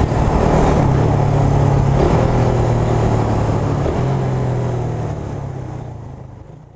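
Suzuki Raider R150 carb's single-cylinder four-stroke engine running while riding, heard from a helmet camera with wind rushing over the microphone. The steady engine note breaks briefly twice, and the sound fades out near the end.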